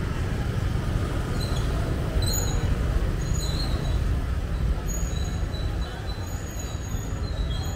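Steady low rumble of city street traffic, with short, thin, high-pitched whistling tones coming and going.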